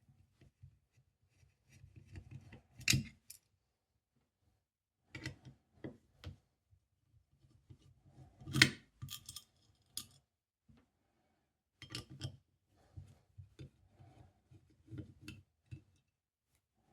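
Screwdriver working on the screws of a steel 7-lever safe lock's case: scattered metallic clicks, taps and scrapes with short pauses, and a sharper clack about eight and a half seconds in.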